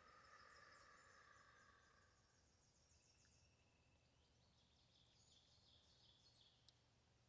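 Near silence: faint room tone with faint, high, repeated chirping in two spells, one starting about half a second in and one from about four and a half seconds in.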